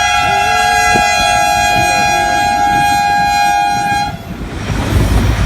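Train horn sounding one long, steady blast that cuts off about four seconds in, followed by the loud low rumble of a train running past.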